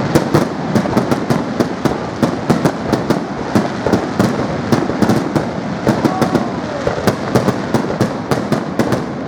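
Fireworks going off in a dense, continuous barrage: many sharp bangs and cracks every second, overlapping over a steady rumble.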